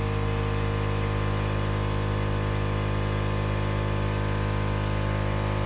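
A steady hum made of several even pitches, strongest low down, holding the same level throughout with no clicks or changes.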